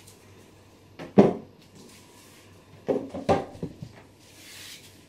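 Kitchen handling sounds: a sharp knock about a second in, then a quick run of knocks and clinks around three seconds in, as things are put down and moved about on a kitchen worktop.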